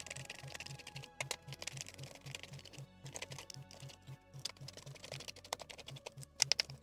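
Small irregular clicks and ticks of a screwdriver turning screws out of a cordless LED light's plastic handle, with screws set down on a silicone mat. Background music with a steady low beat, about four pulses a second, runs underneath.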